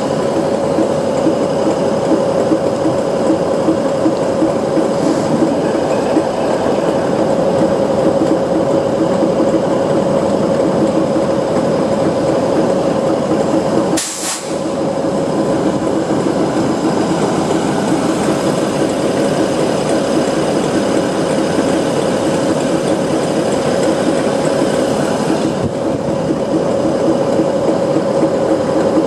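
Class 60 diesel-electric locomotive running steadily with a constant high hum while its train of cement tank wagons slows and stands waiting at a signal. The sound breaks off briefly about halfway through.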